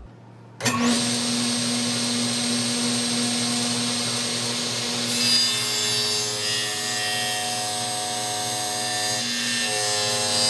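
Table saw running and cutting through a laminated hardwood bow-riser block; the sawing starts suddenly about half a second in and holds steady, with its tone changing about halfway through.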